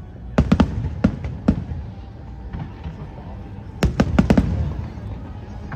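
Fireworks display: aerial shells bursting with sharp bangs, a quick cluster about half a second in, single bangs at about one and one and a half seconds, then another rapid cluster a little before four seconds, over a continuous low rumble.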